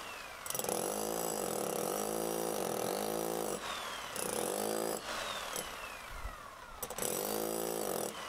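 Electric demolition hammer with a chisel bit breaking into a stone block wall, running in three bursts with short pauses. In each pause a whine falls away in pitch.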